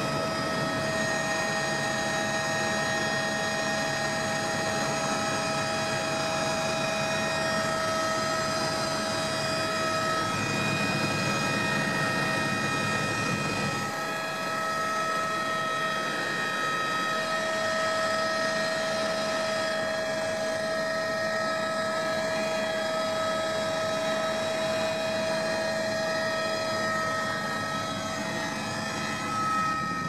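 Helicopter cabin noise heard from inside: a steady, high turbine whine of several constant tones over the rush of the rotor and engine. The mix shifts slightly a few times.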